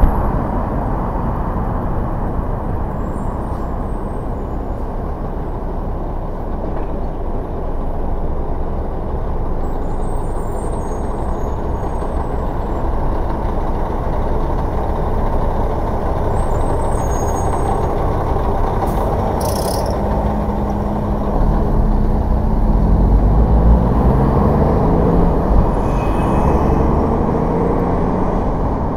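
Steady traffic and road noise, with a short air-brake hiss from a heavy vehicle a little after two-thirds of the way through. After it, an engine grows louder and rises in pitch in steps as a vehicle accelerates.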